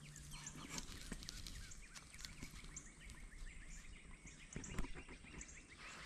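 Faint outdoor ambience with a rapid run of short, high chirps from small wild creatures, plus scattered faint ticks and a couple of brief clicks near the end.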